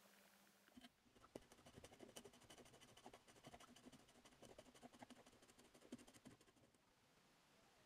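Faint, rapid scratching of a pointed tool scraping white paint resist off a steel cleaver blade, starting about a second in and stopping near the end.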